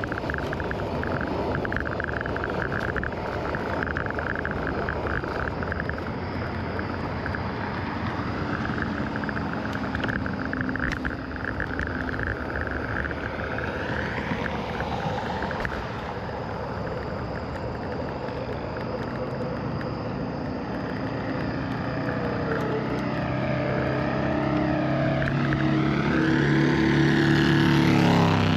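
Riding a scooter along a road: wind rushing over the microphone and road noise, with a steady whine in the first half. In the last several seconds an engine note rises in pitch and grows louder.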